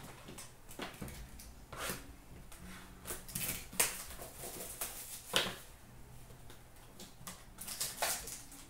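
Hockey card packaging being opened by hand: crinkling and tearing of a pack wrapper and trading cards being handled, with a few sharp crackles.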